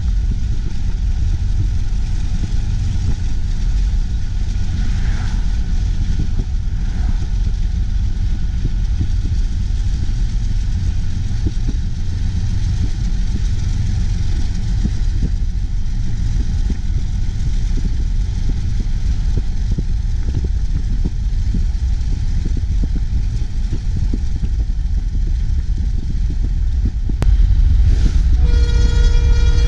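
Steady low rumble of a car driving at speed, road and wind noise mixed with a diesel-hauled coal train running alongside. Near the end it gets louder as a truck passes close, and a horn sounds briefly.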